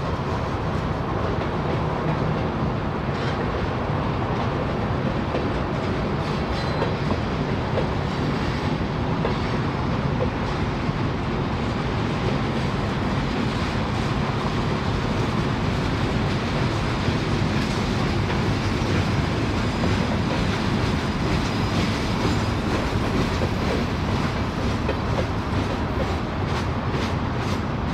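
Freight cars of a mixed freight train rolling past: a steady rumble of steel wheels on rail, with wheel clicks growing more distinct near the end.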